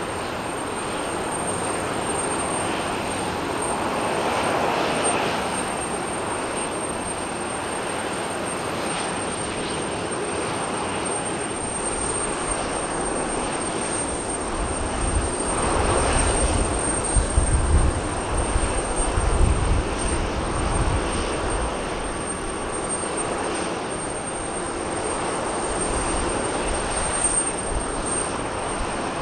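Boeing 737-800's CFM56 jet engines running steadily at idle, a continuous rush with a thin high whine. About halfway through, an irregular low rumble rises for several seconds and is the loudest part.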